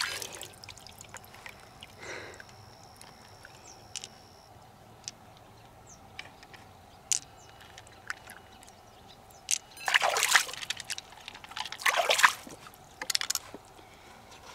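Water sloshing and splashing in two short bursts in the second half, with faint scattered clicks and taps between them.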